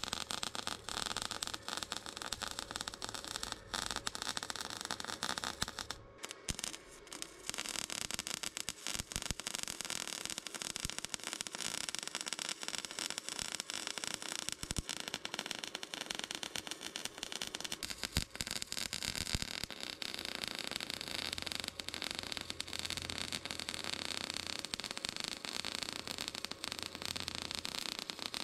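Flux-core wire-feed welder arc crackling steadily as it welds stainless steel exhaust pipe, with a short break in the arc about six seconds in.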